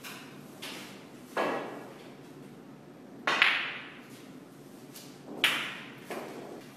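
Snooker balls clicking on a full-size snooker table as a shot is played: about five sharp knocks of cue and balls, the loudest about three and a half seconds in.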